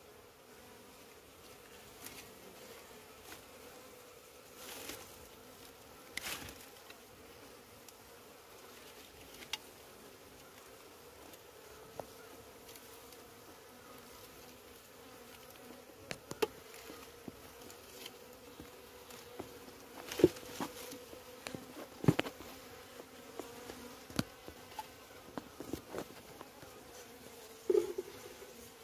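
Honeybees buzzing in a steady low hum around a freshly cut comb being transferred into a wooden hive box, with scattered sharp knocks and clicks from handling the frame. The loudest knocks fall a little after twenty seconds in.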